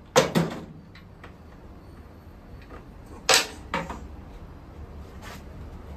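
Tools and metal parts knocking and clanking as a scooter's stock exhaust is being unbolted: a sharp knock just after the start, another about three seconds in, and a few lighter taps between and near the end.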